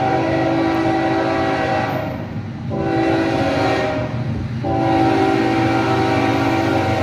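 Diesel freight locomotive's multi-chime air horn sounding a loud chord in three blasts, broken by two short gaps; the last blast is the loudest and runs on. Low rumble of the moving train underneath.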